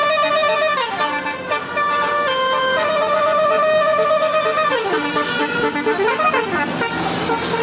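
Bus 'telolet' musical horn playing a tune in held notes that step up and down, with a swooping passage about five seconds in.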